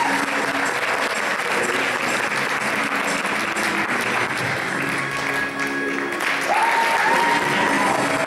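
Audience applauding over music.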